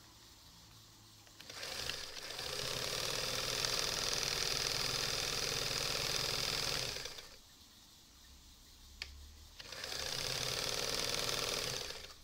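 Singer 320K zigzag sewing machine stitching through thick leather-look material: it starts about a second and a half in and runs steadily for about five seconds, stops, gives a single click, then runs again for about two and a half seconds before stopping.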